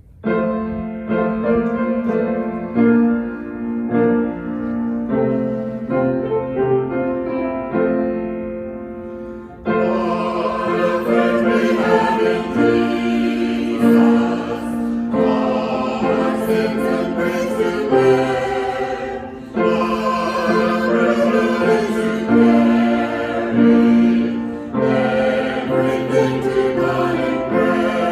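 Choir singing a sacred song with keyboard accompaniment. A quieter keyboard opening of held chords comes first, and the fuller sound, with voices coming in, starts about ten seconds in.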